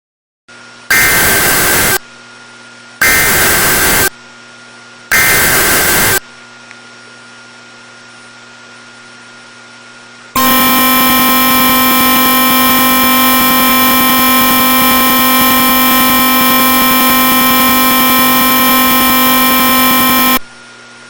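Emergency Alert System header and attention signal for a flash flood warning: three one-second bursts of screeching SAME data tones about two seconds apart, then, after a pause of about four seconds, a loud steady alarm tone that lasts about ten seconds and cuts off suddenly.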